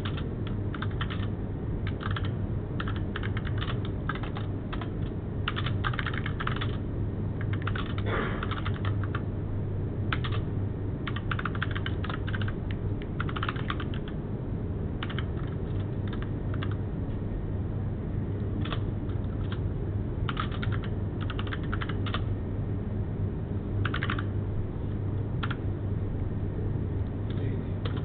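Typing on a computer keyboard: quick runs of keystrokes in irregular bursts with short pauses between them. A steady low hum sits underneath.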